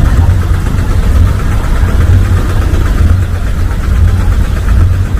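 A river boat's diesel engine idling with a steady low rumble that swells and eases unevenly.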